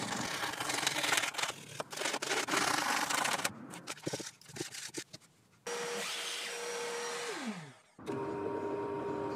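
Coping saw strokes rasping through a thin wooden ring, followed by a few short scrapes and clicks. About halfway a drill press motor runs and winds down, its pitch falling away, and near the end the drill press is running steadily again.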